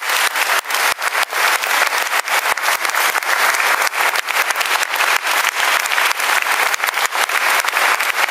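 Audience applause: many hands clapping together, dense and steady.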